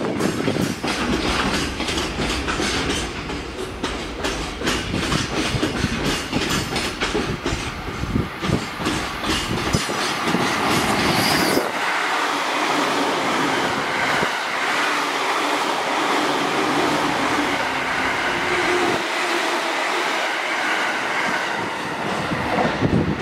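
Loaded container freight wagons rolling past at low speed, their wheels clacking over rail joints in quick succession. About halfway through, the clacking gives way to a steadier rolling rumble with a faint wheel squeal.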